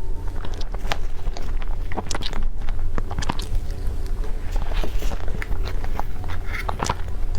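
Close-miked eating sounds: irregular bites, chewing and small mouth clicks and crackles over a steady low hum.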